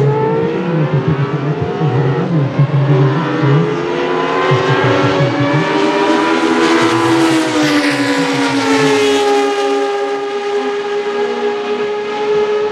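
Historic 1970s–80s Formula 1 car engines running at high revs, several engine notes overlapping. The pitch climbs around the middle, then drops and holds steady toward the end.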